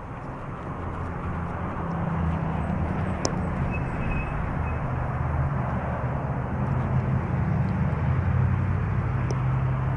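Road traffic heard from a moving bicycle: a motor vehicle's engine running close by over road noise. It grows louder over the first two seconds and then holds steady.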